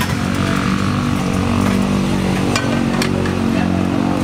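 Motorcycle engine running steadily, with a couple of light clicks from tire tools about two and a half and three seconds in.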